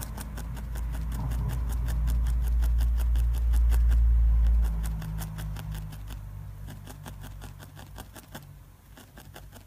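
Felting needle stabbing repeatedly into wool fibres on a felting base, a fast even run of ticks, several a second, thinning out after about six seconds. Under it a low rumble swells, peaks around four seconds in, then fades.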